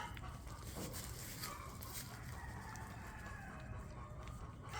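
A faint rooster crowing: one long arching call about a second and a half in, over a low steady background with a few light clicks.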